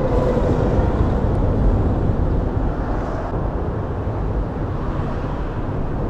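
Steady low rumble of highway traffic crossing the bridge deck overhead, heard from beneath the bridge.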